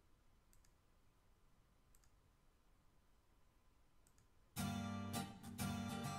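Near silence with a few faint clicks, then about four and a half seconds in, a song's instrumental intro starts suddenly and loud, with guitar, steady low notes and regular accents.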